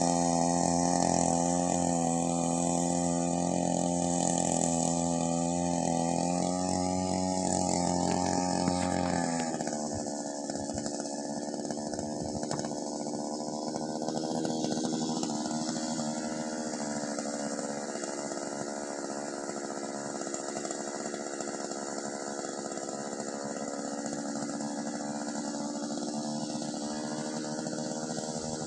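Small petrol engine of a paddy power weeder running steadily as it works between rice rows; about nine seconds in its note drops lower and quieter and then holds.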